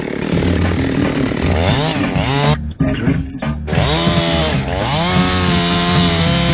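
Chainsaw running hard, its pitch dropping and rising twice, then holding steady from about five seconds in.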